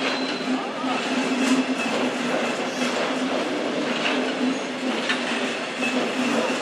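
Double-deck regional passenger train rolling slowly over station points, with a steady running noise and low hum. The wheels click irregularly over rail joints and switches, and there are a few brief high wheel squeals.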